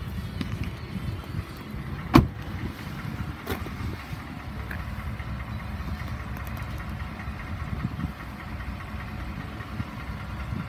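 2018 Ford F-150 door shutting with a sharp thud about two seconds in, and a smaller knock a second later, over a steady low rumble.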